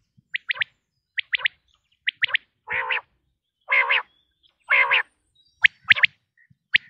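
Quail calling: short, sharp, high notes repeated in quick pairs and triplets, with three longer, lower, rasping calls about a second apart in the middle.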